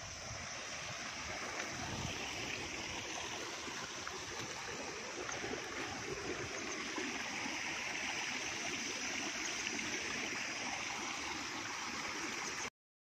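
Water running steadily in a small channel beside rice terraces, a constant rushing hiss that stops abruptly near the end.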